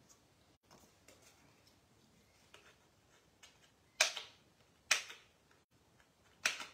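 A few faint ticks, then three sharp clicks about a second apart in the second half, from card and craft supplies being handled and pressed on a craft desk.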